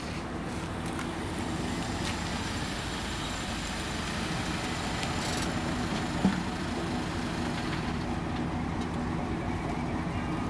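An engine running steadily, with one short knock about six seconds in.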